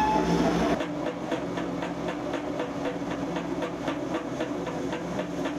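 Hydraulically driven pipe facing machine running, a steady mechanical hum with a rhythmic ticking about four times a second. The deeper part of the hum drops away less than a second in.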